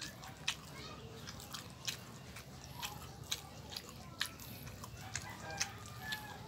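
Close-up chewing and lip-smacking of a person eating soft rice and dinuguan by hand: irregular small wet clicks of the mouth.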